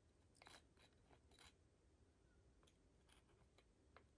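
Near silence with a few faint small clicks and scratches, the clearest two in the first second and a half: a glue bottle's nozzle and thin wooden craft pieces being handled as glue is dabbed on.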